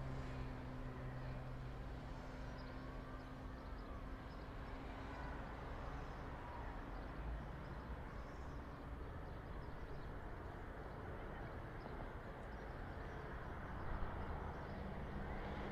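City street ambience: a steady rumble of traffic, with one vehicle's engine hum fading away in the first few seconds. People can be heard faintly in the background.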